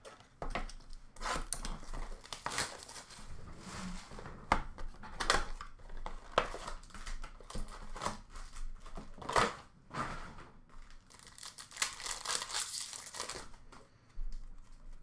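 Upper Deck hockey card packs being torn open and their wrappers crinkled, in a run of irregular rips and rustles.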